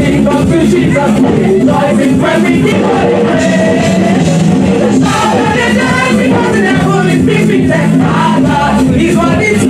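Gospel choir singing loudly into microphones, with musical accompaniment.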